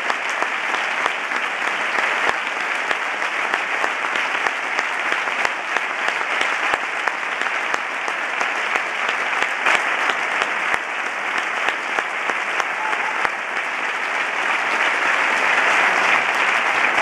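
Audience of a large theatre hall applauding steadily, a dense patter of many hands clapping that grows louder near the end.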